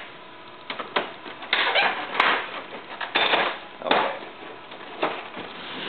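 A series of irregular short plastic clattering and scraping noises as the scanner lid assembly of an HP LaserJet 3300-series printer is handled and the screws underneath it are worked out with a screwdriver.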